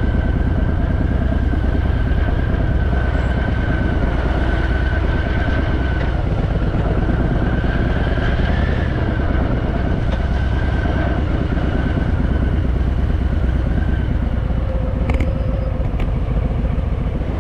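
Harley-Davidson Fat Boy's V-twin engine running steadily with a low rumble in stalled motorway traffic, with a faint steady high tone above it.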